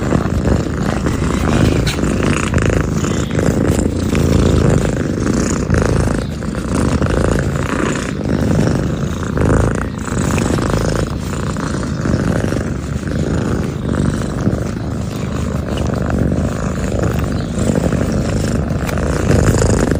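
Kitten purring steadily, a continuous low rumble.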